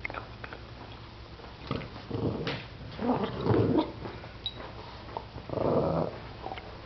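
Adult Boston terrier growling in three rough bursts, about two seconds in, around three seconds and near six seconds. It is a warning growl over a bone that a puppy is nosing at.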